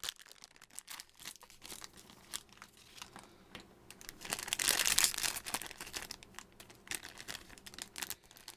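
Foil blind bag for an Imaginext collectible figure being crinkled and torn open by hand: scattered crackles, with a louder stretch of crinkling about halfway through.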